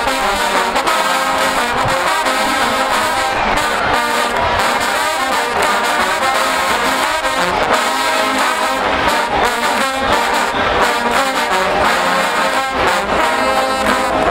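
Marching band trombone section playing a tune loudly in unison, backed by the rest of the band's brass.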